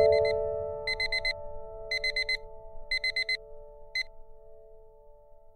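An electronic alarm beeping in quick sets of four, about one set a second, ending with a single short beep about four seconds in. Under it, a sustained piano chord from the soundtrack starts loud and slowly fades.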